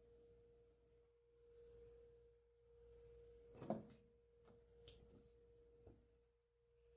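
Near silence: a faint steady hum with a few light clicks and taps, the loudest a little past halfway. The taps come as a small plastic food-colouring dropper bottle is handled and set aside.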